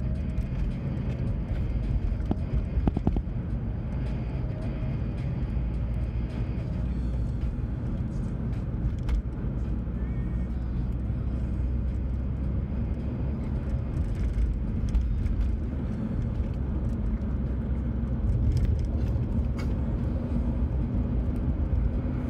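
Road noise heard from inside a moving car: a steady low rumble of engine and tyres.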